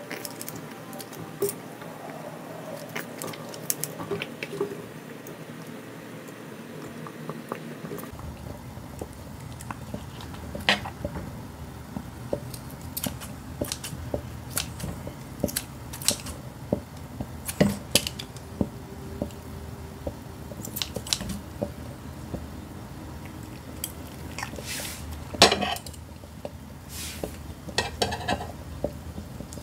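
Metal tongs and kitchen scissors clicking and clinking while cooked meat is held and snipped into pieces over a pan: irregular sharp clicks, with a louder cluster of clinks near the end.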